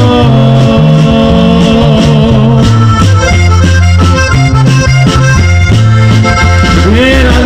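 Live button accordion playing the melody in an instrumental passage, over a stepping bass line.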